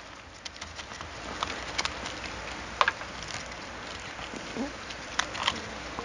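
Hands scooping coarse orchid potting mix of dark chips and white stones into a small pot around the plant: a steady rustle with scattered clicks of pieces knocking together, sharpest about three seconds in and twice near the end.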